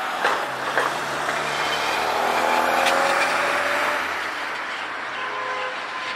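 A car drives past close by on a city street, loudest about halfway through, while a tram pulls away across the junction. Two sharp clacks from the tram's wheels over the track come in the first second.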